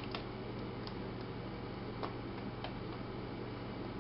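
A few faint, scattered plastic ticks and clicks as fingers work the display cable connector into its socket on the back of a laptop LCD panel, over a steady low hum.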